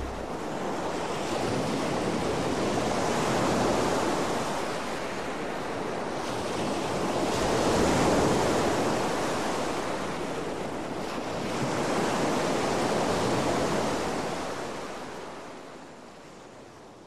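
Sea waves washing in, an even rushing that swells and ebbs about every four to five seconds, then fades out near the end.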